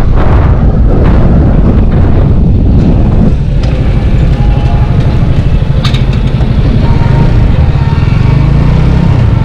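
Yamaha sport motorcycle's engine running steadily while riding through city traffic, heard from on the bike.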